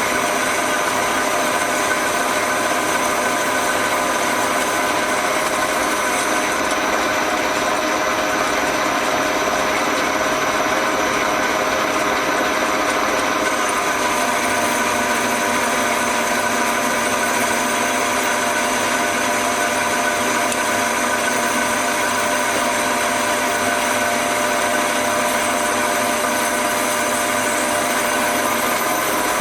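Progres 380 metal lathe running steadily while cutting a steel adapter plate down towards finished size: a continuous machine hum made of several held tones, with a slight change in its character about six seconds in and again around fourteen seconds.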